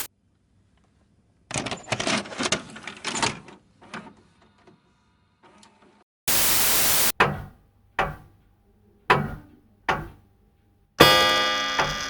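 A run of sound effects. First a cluster of rapid clicks and knocks, then a short burst of static about six seconds in. After that come four sharp single thuds that die away quickly, and near the end a ringing, buzzing hit that fades out.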